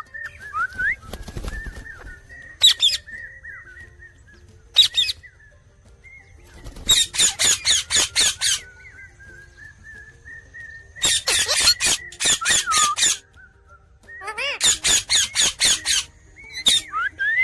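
Indian ringneck parrot chirping: a couple of short single calls, then three runs of rapid repeated sharp chirps lasting a second or two each. A thin, wavering whistle sounds between the runs.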